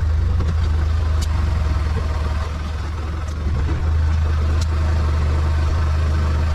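Arctic Cat side-by-side's engine running steadily with a low drone, with a few faint ticks.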